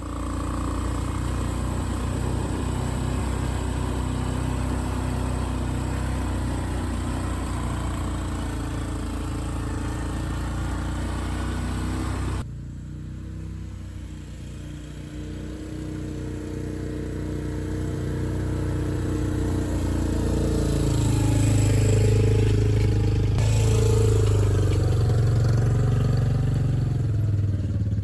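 ATV engine running steady at first. The sound changes abruptly about twelve seconds in, then the engine grows louder, its pitch shifting as it pulls.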